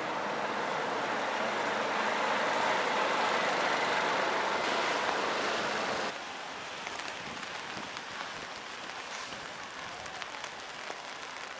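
Heavy truck passing close by on a wet road, its tyre hiss and engine building and then breaking off suddenly about six seconds in. After that, quieter traffic noise in light rain, with scattered raindrop ticks.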